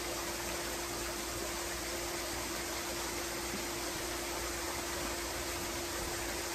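Backyard pool's rock waterfall splashing steadily into the pool, an even rushing hiss with a steady low hum underneath.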